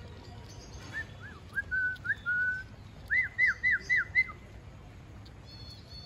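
Rose-ringed parakeet whistling: a few short whistled glides and held notes about a second in, then a quick run of about five rising-and-falling whistles a little past the middle.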